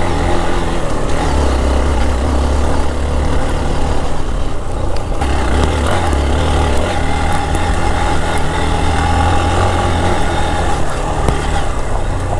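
Hero XPulse 200 4V's single-cylinder engine running steadily as the motorcycle is ridden, with a dense haze of riding noise over it.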